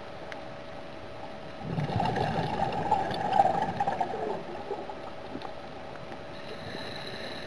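Scuba diver's exhaled bubbles gurgling out of the regulator for about two and a half seconds, starting about two seconds in, over a steady hum heard through the water.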